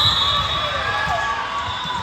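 Spectators cheering and shouting in a gym during a volleyball rally, with shrill high calls and dull thuds under them.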